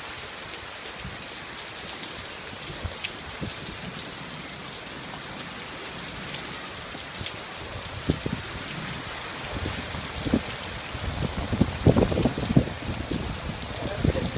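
Heavy rain falling steadily, hissing on the road and pouring off the edge of a corrugated roof. Low buffeting rumbles on the microphone grow over the last few seconds.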